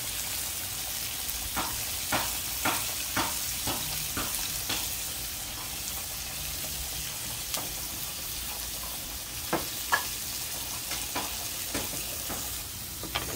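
Sliced sweet peppers, tomatoes and garlic sizzling steadily in a non-stick frying pan, with scattered clicks and taps of utensils, a run of them in the first few seconds and another near the end.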